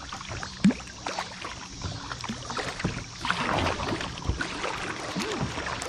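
Kayak paddling on a flowing river: a double-bladed paddle dipping and pulling through the water in repeated strokes, with splashing and the wash of moving water around the boat. A short, louder sound stands out under a second in.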